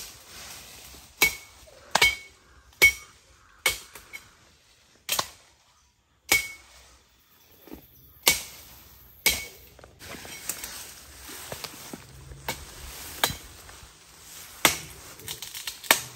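Repeated chopping blows of a blade into a standing tree, about one a second at an uneven pace with a short pause midway, several strikes leaving a brief metallic ring.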